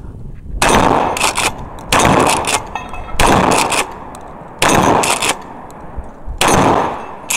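Firearm gunfire: five quick strings of shots, each lasting about half a second, spaced a little over a second apart.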